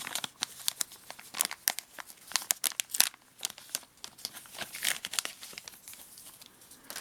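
Packaging crinkling and rustling as a pocket knife is unwrapped and drawn from its pouch: an irregular run of short crackles and rustles, thickest in the middle.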